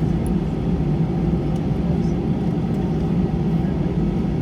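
Airbus A320 cabin noise with the engines running: a steady low rumble with a faint even hum and no change in pitch or loudness.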